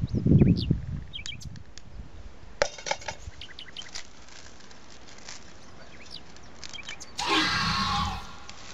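Dry twigs and brush snapping and rustling as kindling is gathered and pushed into a small folding wood-burning stove: scattered sharp cracks, then a louder rustle about seven seconds in. A brief low rumble at the start.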